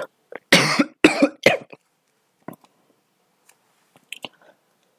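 A person coughing three times in quick succession, then a few faint clicks.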